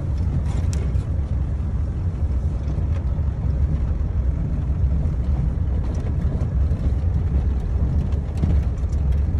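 The 1997 Ford F-350's 7.3 L diesel V8 running as the truck drives on a snowy road, heard from inside the cab as a steady low rumble.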